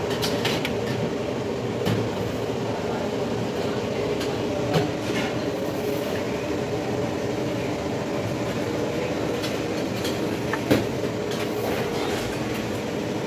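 Steady mechanical droning with a few low hums running through it, broken by a handful of sharp clinks, loudest about three-quarters of the way in.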